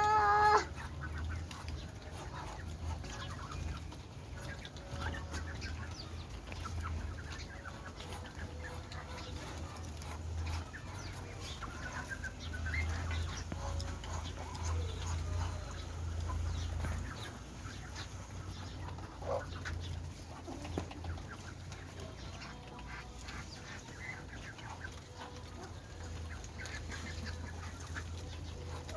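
Flock of chickens clucking, with scattered short calls over a steady low rumble.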